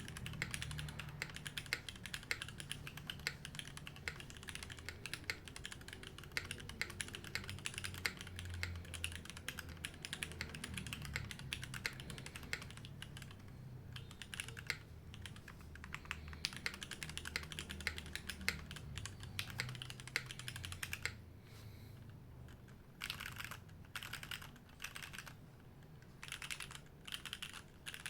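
Typing on a Navi60 mechanical keyboard with Cherry HB switches, Staebies stabilizers and GMK keycaps. It is a fast, continuous run of keystrokes for most of the time, breaking into short separate bursts of typing near the end.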